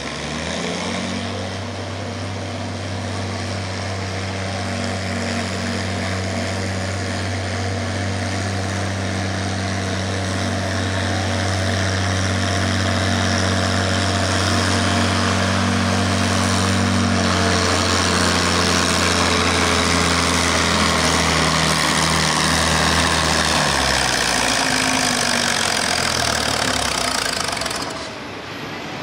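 Classic Oliver tractor engine under full throttle pulling a weight-transfer sled: a loud, steady heavy drone that holds its pitch through most of the pull. About 24 seconds in the note drops and breaks up as the tractor comes to the end of its pull.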